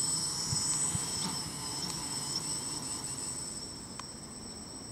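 Baby Widow Maker quadcopter's 1400 kV brushless motors and propellers whining at low throttle on the ground just after landing: a steady high whine that slowly fades.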